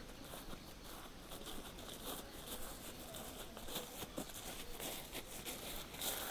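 Faint rustling with scattered light ticks and clicks.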